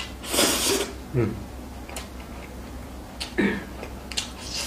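A person slurping a mouthful of stir-fried spicy noodles, loudest about half a second in, then eating sounds with short mouth clicks and two brief hums.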